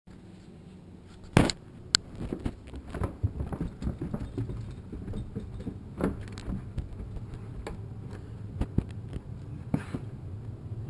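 Footsteps of a person climbing carpeted stairs: irregular soft thumps and rustles, with a loud knock and then a sharp click about a second and a half in.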